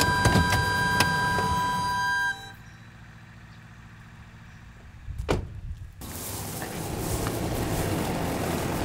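Acoustic guitar music that cuts off about two seconds in, followed by a quieter low steady hum, a single sharp knock about five seconds in, and then a steady outdoor hiss.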